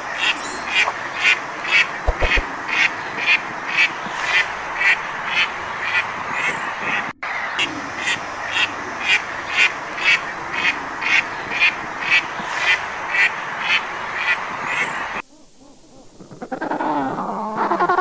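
Mallard duck quacking in a long, steady series, about two quacks a second, over a constant background hiss. The quacking stops about fifteen seconds in, and after a short lull a different, wavering call begins.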